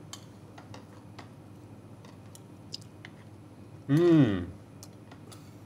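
Faint clicks of metal forks against a plate and quiet chewing as apple crumble is tasted. About four seconds in comes one loud appreciative vocal sound from a man, rising then falling in pitch.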